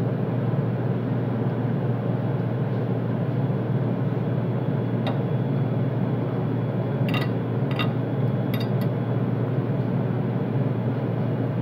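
Steady hum of commercial kitchen machinery, with a few light clicks of a metal fork against a ceramic plate about halfway through.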